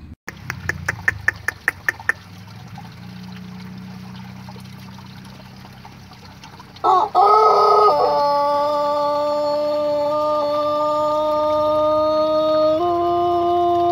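A quick run of about ten sharp claps, then a Pelung rooster's long crow starting about seven seconds in: a rough opening, then one long held note that steps up in pitch near the end and keeps going.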